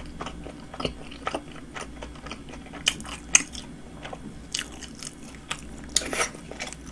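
Close-up chewing of a mouthful of Subway sandwich on flatbread: soft wet mouth sounds with irregular smacking clicks, a louder cluster about six seconds in.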